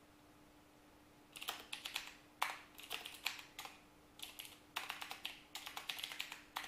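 Typing on a computer keyboard: quick runs of keystroke clicks starting about a second and a half in, after a quiet start with a faint steady hum.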